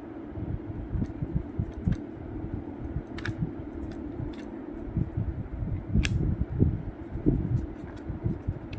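Steady hum of a fan with irregular low rumbling of moving air buffeting the microphone, and a few sharp clicks, one about three seconds in, one about six seconds in and one near the end.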